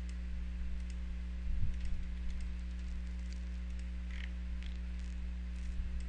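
Scattered light clicks of a computer mouse and its scroll wheel, with a couple of soft thumps about a second and a half in, over a steady low electrical hum.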